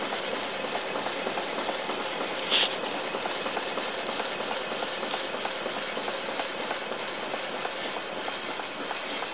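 1900-patent Stirling hot-air fan engine running: light, regular clicking from its piston linkage over a steady hiss, with one louder clack about two and a half seconds in.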